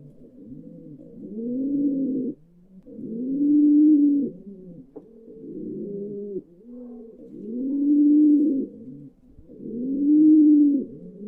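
A group of pigeons cooing: low, rolling coos that swell and fall about every two seconds, overlapping one another.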